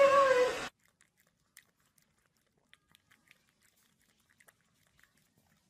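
A person's voice for the first split second, cut off abruptly; then faint, scattered little wet clicks of a puppy licking and smacking its lips.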